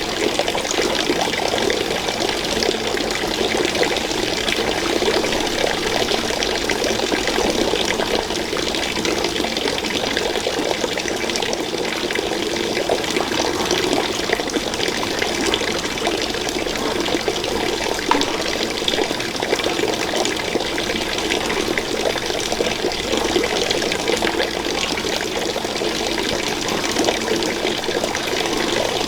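Water running in a steady flow, with small splashes and drips throughout.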